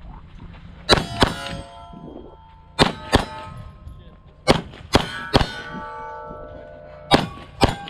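Pistol shots fired at steel plate targets, each hit ringing the steel. There are about nine sharp cracks in quick pairs and one group of three, with the plates' ring hanging on after each.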